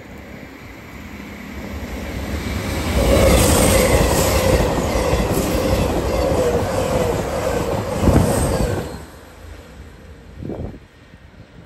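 A train passing close by: the wheels clatter over the rail joints with a steady tone running through, building over a few seconds, with a sharp knock near the end of the loudest part before it dies away.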